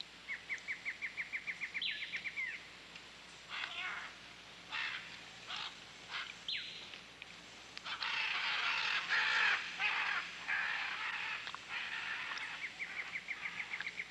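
Rainforest birds calling. A fast, even trill of about eight notes a second opens the stretch and comes back near the end, and between them there are harsh, raspy calls, loudest in the middle.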